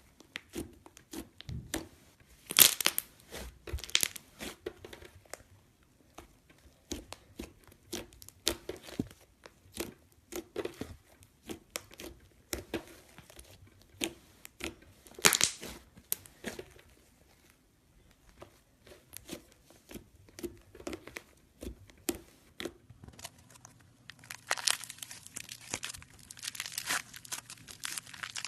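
Slime being handled by hand, squished and pulled, making many sharp sticky clicks and pops. About 23 seconds in it turns into a denser, steady crackling.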